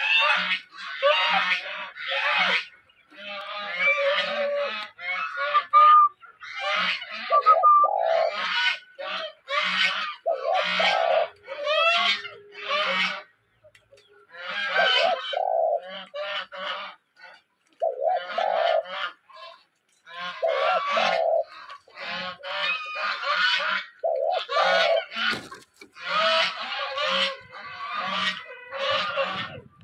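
Birds calling: a loud, near-continuous run of short calls, several a second, with a short lull about halfway.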